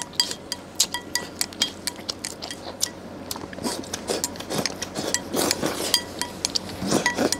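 Eating utensils clinking and knocking against ceramic bowls during a meal: a scatter of short, irregular clinks, some ringing briefly.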